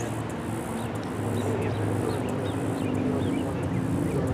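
Road traffic: car engines running and tyres on pavement as vehicles drive over a railroad crossing, a steady rumble that grows slightly louder.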